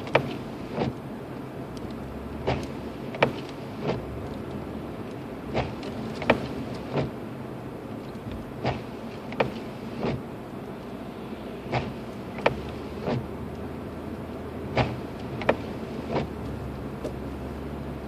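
Car cabin noise while driving on a snow-covered road: a steady low engine and road rumble, broken by short knocks that come in threes about every three seconds.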